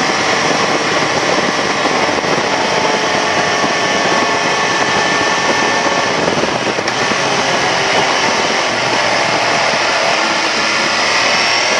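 MV Agusta Rivale 800's three-cylinder engine running while the bike is ridden, under a dense rushing noise, its pitch drifting and then climbing near the end as it revs up.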